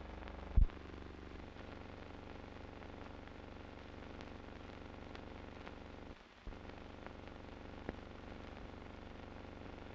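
Steady hum and hiss of an old film soundtrack with no other sound, broken by a loud pop just under a second in, a short dropout around six seconds, and a few faint clicks.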